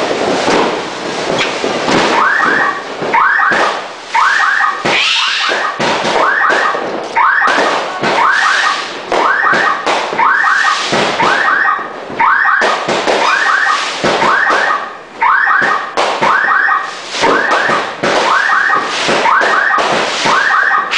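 Fireworks going off in quick succession, a near-continuous run of bangs and crackles. Through it, a short chirping call repeats at an even pace, about once a second.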